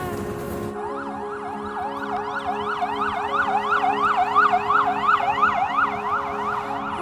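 Emergency vehicle siren in a fast rising-and-falling yelp, about three sweeps a second, starting just under a second in and stopping shortly before the end, over steady background music.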